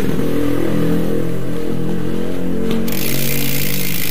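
Saturn Titan 3.0 bicycle rear hub freewheeling with the wheel spun, its 6-pawl ratchet clicking so fast it makes a loud, steady buzz with a wavering pitch; a brighter hiss joins it about three seconds in.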